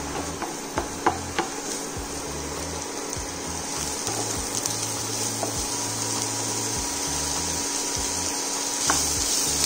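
Diced vegetables sizzling steadily in hot oil in a frying pan as they are stir-fried, with a few light clicks of a wooden spatula against the pan in the first second or so and once near the end. Background music with a low bass line runs underneath.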